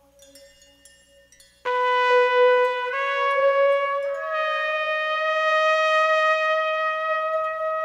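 Opening of a 1970s jazz-funk instrumental track. After a faint held tone, a brass horn comes in loudly with a long held note about one and a half seconds in, then steps up twice to higher held notes.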